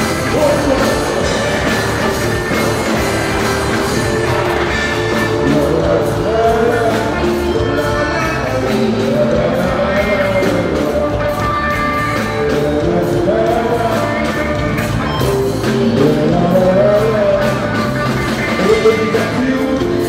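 Live rock band playing with a singer: a loud, steady full-band mix with a melodic vocal line.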